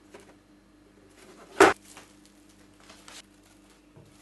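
Plastic cling film crinkling and crackling as it is pulled from the roll and stretched over a mixing bowl. One short, loud crackle comes about a second and a half in.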